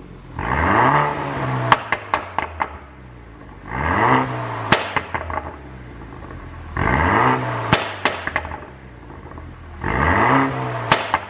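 BMW F30 320i's turbocharged four-cylinder revved in place four times, each blip rising and falling in pitch and followed by several sharp exhaust pops on the overrun from a pop-and-bang tune.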